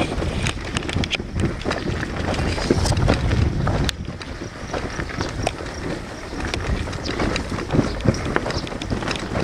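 Wind buffeting the microphone, a rumbling noise with many small irregular clicks and crunches on top, on the move along a dirt road. The level drops suddenly about four seconds in.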